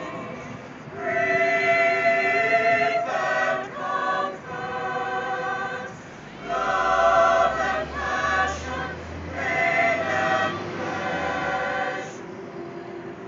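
Mixed chamber choir of men's and women's voices singing a cappella in sustained harmony. The phrases swell and ease off, and the singing stops about a second before the end, leaving the hum of street traffic.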